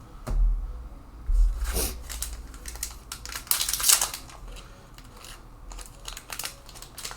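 Trading cards and booster-pack packaging being handled: short rustles and crinkles with scattered light clicks, the loudest rustles about two seconds in and again about four seconds in.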